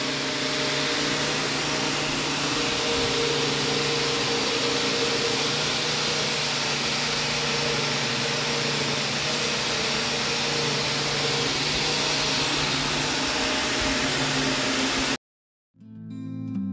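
A machine running steadily in a workshop: a constant hum under an even hiss. It cuts off suddenly about fifteen seconds in, and guitar music starts soon after.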